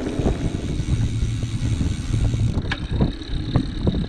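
Wind buffeting the microphone of a camera on a moving bicycle: a continuous low rumble that swells and drops with the gusts of a strong wind.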